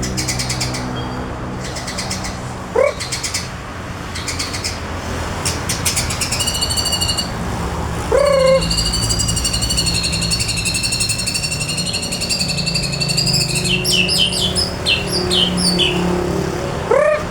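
A male murai, a Copsychus songbird, singing: clear high whistled phrases and fast clicking trills. Three times a short, loud, lower swooping call cuts in, over a steady low hum.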